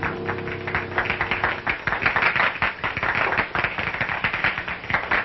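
A band's last held notes, then about a second in a dense burst of hand-clapping applause.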